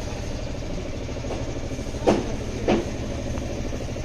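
Steady low mechanical rumble, with two short louder sounds about two seconds in, half a second apart.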